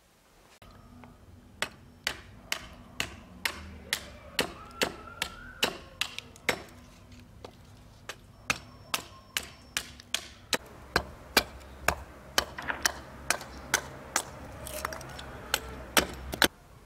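A steel cleaver-axe chopping kindling on a wooden stump: a steady series of sharp knocks, about two a second, with a short pause midway and the hardest blows near the end.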